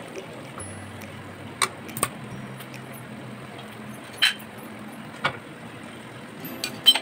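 A spatula scraping and knocking against a metal pot as chicken masala is stirred, with a few short sharp clacks, the loudest near the end, over a steady low background noise.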